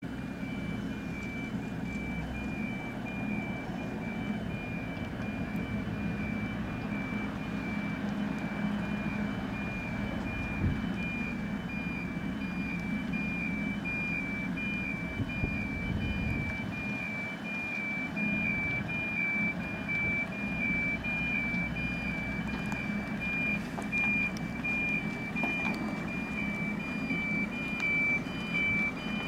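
Reversing alarm beeping steadily, a high repeating tone, as a Scania 6×4 tractor unit backs a loaded multi-axle trailer. Its diesel engine runs low and steady underneath.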